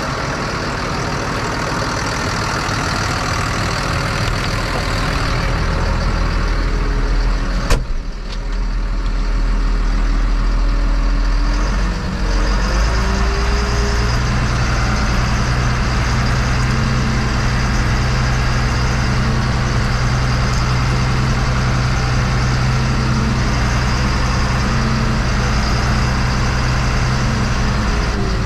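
Fendt 926 Vario's six-cylinder, 6.9-litre diesel engine running steadily, heard from inside the tractor cab. There is a single sharp click about eight seconds in. A little after twelve seconds the engine note shifts and a stronger low hum sets in and holds.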